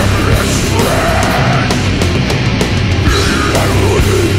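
Death metal recording: heavily distorted electric guitars and bass under fast drumming, loud and dense throughout.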